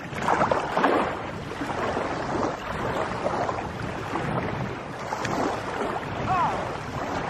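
Wind buffeting the microphone over small lake waves lapping at the shore, a steady rushing hiss.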